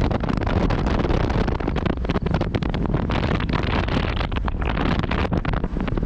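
Wind buffeting the microphone heavily in irregular gusts over the steady noise of a car on the move.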